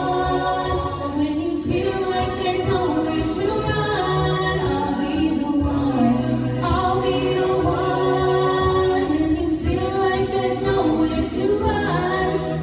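A high school a cappella group singing in close harmony: sustained chords over a low sung bass line, with no instruments.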